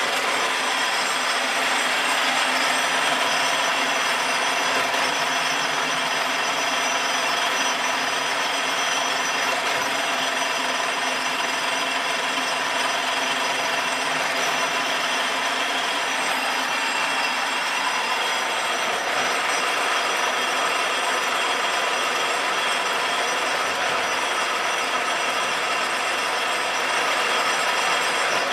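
Davenport Model B five-spindle automatic screw machine running: a steady mechanical din of gears, cams and spindles with several constant tones over it.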